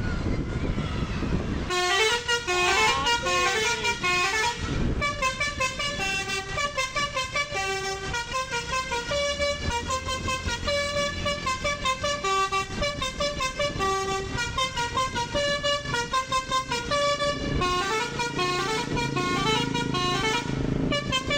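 Bus telolet basuri musical horn playing a melody of quick stepped notes, beginning about two seconds in after a rush of noise.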